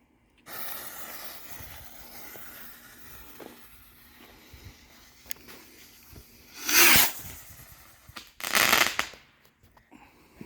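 Texas Pop Rockets bottle rockets going off: a sudden hiss at launch that fades over several seconds, then two loud bursts about seven and eight and a half seconds in.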